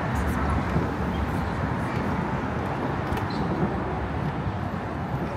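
Steady street traffic noise, a constant deep rumble with no single vehicle standing out.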